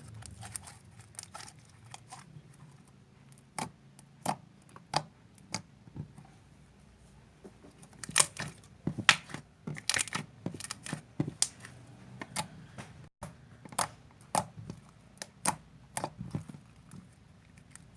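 Homemade white PVA-glue slime being squeezed and kneaded by hand, making irregular sticky pops and crackles that come thicker and louder about halfway through.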